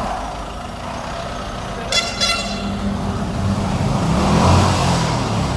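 Tata Sumo diesel engine running, with a short double toot of a vehicle horn about two seconds in. The engine gets louder around four seconds in, then eases off.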